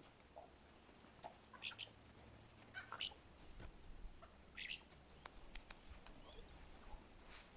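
Near silence: faint outdoor ambience with a few short, high squeaks and scattered light clicks.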